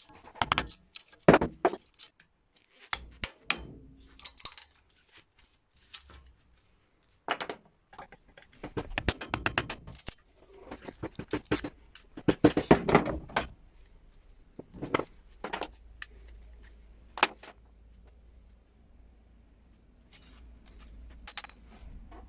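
Wooden sickle handle being split and pried off its rusty steel tang with a flat chisel-like tool in a bench vise: irregular sharp knocks, wood cracking and splintering, and metal scraping on wood. The work is busiest in the middle, in runs of rapid clicks, and dies down to a few faint sounds near the end.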